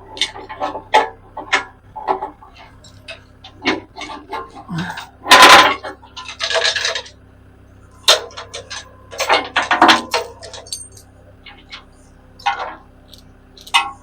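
Irregular metal clinks and knocks from a cant hook and sawmill log dogs while a log is being turned on the mill, with a few louder scraping rushes around the middle.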